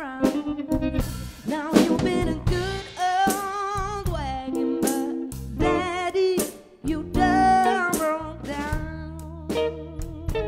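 Live band playing: electric guitar, bass guitar and drum kit, with a lead line that wavers in pitch with wide vibrato.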